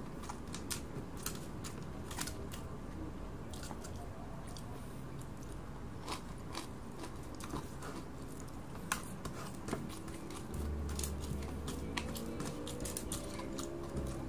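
Close-up chewing and crunching of crisp dried fish eaten by hand, with irregular sharp clicks and crackles.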